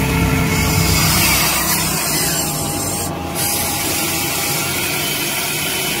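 Huina radio-controlled toy excavator working: its small electric motors and gears whirring steadily while the bucket scrapes and scoops wet mud.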